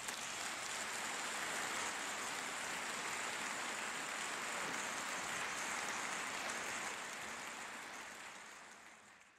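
Large audience applauding, a dense, steady clapping that fades out over the last couple of seconds.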